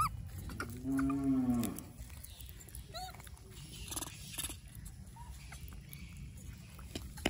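A cow moos once, briefly, about a second in, its pitch rising and then falling. Short high rising squeaks and small clicks come before and after it.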